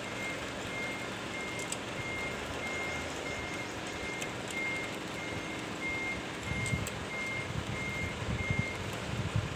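A vehicle's reversing alarm beeping steadily, about three short beeps every two seconds, stopping near the end. Faint clicks and low knocks of hand-tool work on the steamer handle come through in the last few seconds.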